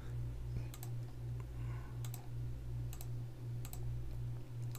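Five sharp double clicks of control buttons being pressed, spaced irregularly about a second apart, over a steady low hum.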